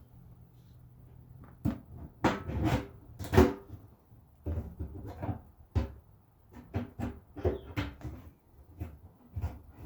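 Irregular knocks, clunks and scrapes of a fuel pump assembly and its hardware being handled and worked into the opening of a gas tank. The loudest knock comes a little over three seconds in.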